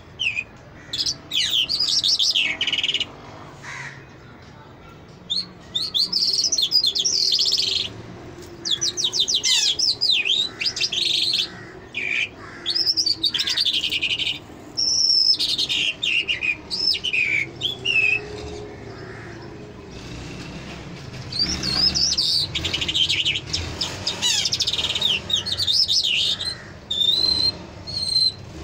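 A caged lark (sold as a Mashadi Jal) singing a long, varied song of rapid warbling, trills and whistled phrases, with only short pauses between runs.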